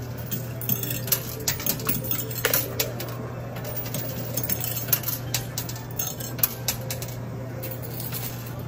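Quarters clinking in a coin pusher machine: coins drop onto the playfield and clatter against the coins already lying there, in irregular clinks over a steady low machine hum.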